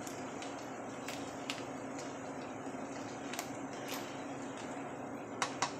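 Large pot of crawfish boil bubbling down just after the heat is turned off, stirred with a spoon: a steady low bubbling hiss with scattered light clicks.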